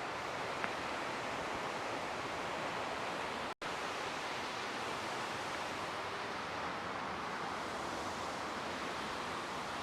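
Steady rushing roar of a waterfall, constant throughout and broken only by a split-second gap about three and a half seconds in.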